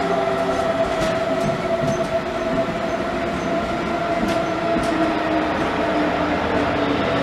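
A train at the station platform, running as a steady hum and whine with several held tones, with a few faint clicks.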